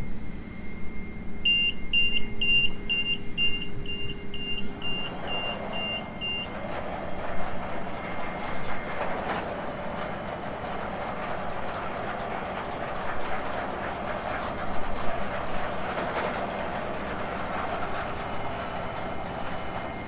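HySecurity SlideDriver 50VF slide-gate operator gives a quick run of about a dozen high warning beeps, then the vehicle slide gate rolls along its rail with a steady rumbling rattle for about fifteen seconds, easing off near the end as it comes to a smooth stop.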